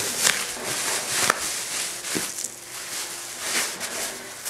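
Clear plastic cling film crinkling and rustling as it is pulled and peeled off a ball of fondant by hand, uneven, with a few sharper crackles.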